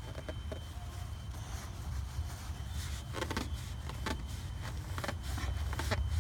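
Light clicks, taps and rustles from hands and a cloth working around the engine bay, most of them in the second half, over a steady low rumble.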